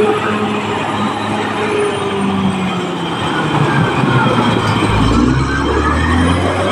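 Caterpillar D6R crawler bulldozer working on a slope: its diesel engine drones steadily under load, with high whining tones rising and falling over it, and the low engine note shifts about five seconds in.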